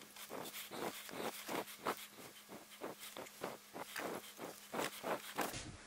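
Faint, irregular small clicks and rustles, several a second, of hands working a crinkling metal tube of sealant onto a heater-hose pipe stub.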